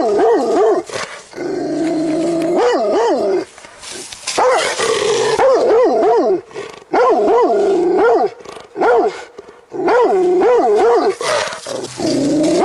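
Angry dog growling and snarling in repeated bouts of a second or two, its pitch wavering up and down rapidly within each bout, with short breaks between them.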